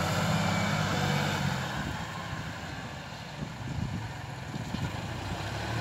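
Tractor engine running with a steady hum that fades after about a second and a half, leaving mostly wind noise on the microphone.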